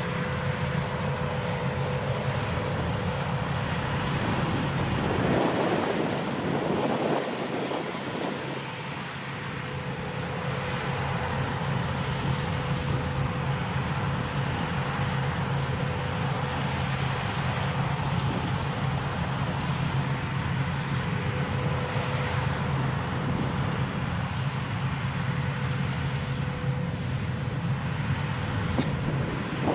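Palesse GS12 combine harvester running steadily as it harvests wheat, a low even hum, under a steady high chirring of insects in the grass. A brief rushing noise comes about five seconds in.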